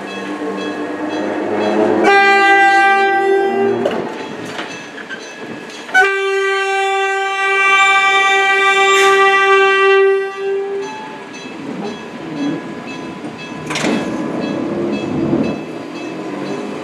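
Enoden electric train sounding its horn twice, a short blast of about two seconds and then a longer one of about four seconds, over the train's running rumble on the rails.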